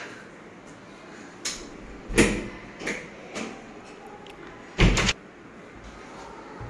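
A wooden door being handled: a few knocks, the loudest about two seconds in, and a longer bang near five seconds in.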